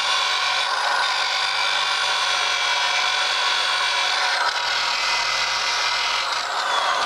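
Small high-speed electric rotary tool spinning a fibre sanding disc against a cast aluminium motorcycle wheel hub, scuffing off old silver paint so new paint will adhere. A steady high whine with gritty scrubbing, shifting slightly about four and a half seconds in.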